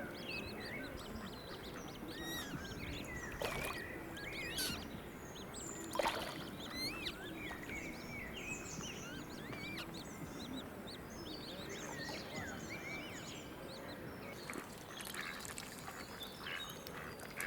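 Mallards and other waterfowl calling, with quacks among many short chirping bird calls that run on throughout. A few short sharp knocks sound a few seconds in.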